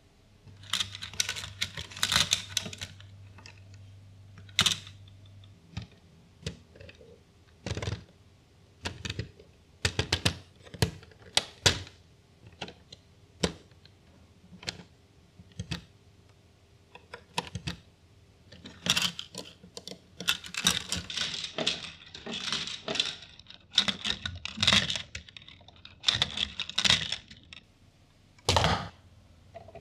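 LEGO Technic plastic parts (beams, gears, pins and axles) clicking and clattering as they are handled and pushed together: many sharp single clicks, with quick clusters of rattling about a second in and again through the last third.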